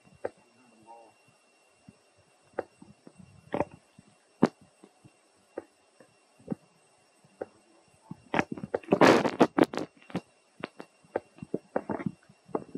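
Dry fallen leaves crackling and rustling as a macaque mother and her infant shift on the leaf litter: scattered single crackles, then a denser burst of rustling about nine seconds in.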